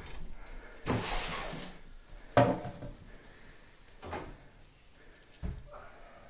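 Knocks and rustling from a long pole prodding behind a kitchen stove while floor cushions are shifted: a brief shuffling rustle about a second in, one sharp knock about two and a half seconds in that is the loudest, and softer knocks later.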